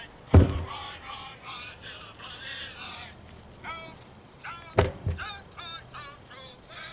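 A 224-pound tractor tire falling flat onto an asphalt road twice, each landing a heavy thud with a short bounce: one about half a second in, one a little before five seconds in.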